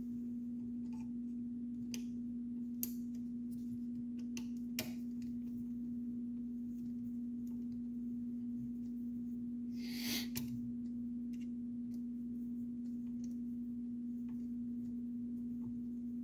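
A steady, pure electrical hum, with a few light plastic clicks and a brief rustle about ten seconds in as the hot-end fan shroud of an Ender 3 Pro 3D printer is handled and fitted back on.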